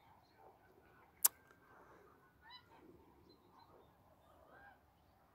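Geese honking faintly in the distance, several short calls, with a single sharp click about a second in.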